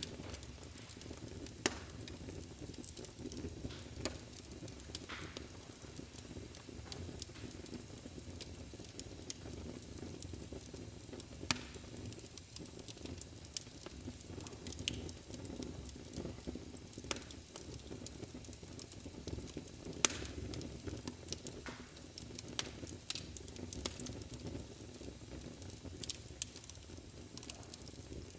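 Wood fire burning in a fireplace: a steady low rumble of flame with frequent irregular crackles and pops, a few sharper pops standing out.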